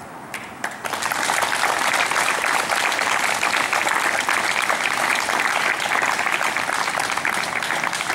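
An audience applauding. The clapping starts about a second in and keeps going steadily.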